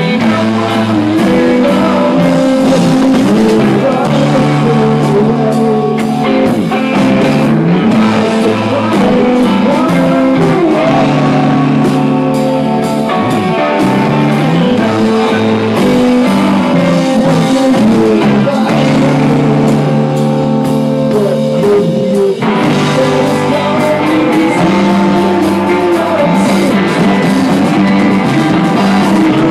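Rock band playing live: electric guitar over drums, loud and steady.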